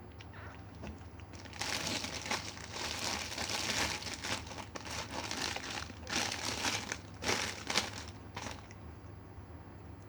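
Crinkly material being rustled and crumpled by hand: a dense run of crackling rustles starting about one and a half seconds in and stopping shortly before the end, with a few louder crumples in the latter part.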